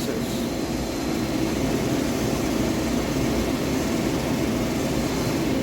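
Forest-Line MajorMill gantry mill's milling head tilting on its A-axis: a steady mechanical running noise from the head's pinion and hypoid drive gears. The owner says this gear noise is normal, the way the head has always sounded.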